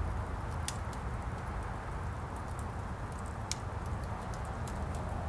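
Wood logs burning in a fireplace, crackling with scattered sharp pops over a steady low rush, two louder pops coming a little under a second in and about three and a half seconds in.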